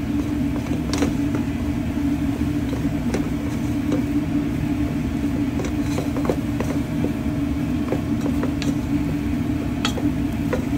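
A wooden spoon stirring and working thick choux dough in an aluminium saucepan, with scattered sharp taps of the spoon against the pan, as the dough cooks on the heat until its water is absorbed. Under it a steady low mechanical hum and rumble is the loudest sound.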